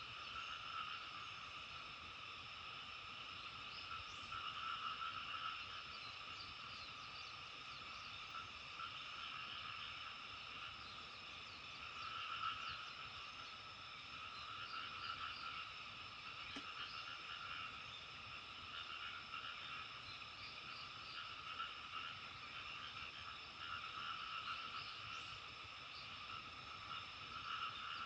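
A chorus of many frogs calling at once, a dense, continuous croaking that swells and eases every few seconds.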